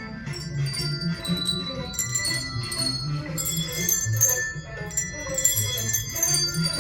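Handbell choir playing a Christmas tune: bell notes struck one after another, each ringing on, with lower notes sounding underneath.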